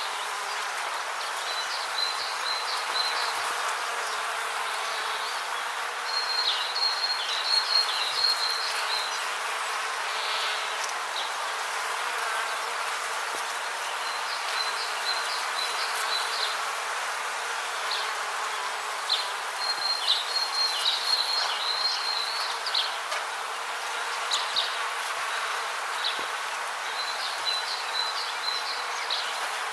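Rainforest ambience: a steady hiss with bouts of high, rapid, insect-like chirping that come and go every few seconds.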